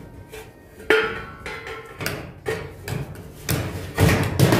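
Tin snips cutting the sheet-steel side of a cable tray: a metallic clank with a short ring about a second in, then a run of short, crunching snips.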